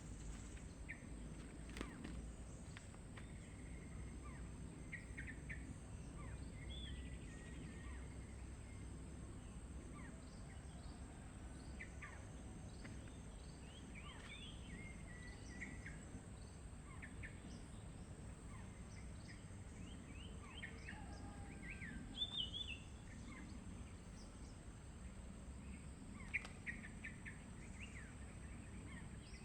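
Wild birds chirping and calling here and there, short high notes with a few louder calls toward the end, over a steady low outdoor rumble and a constant thin high hum.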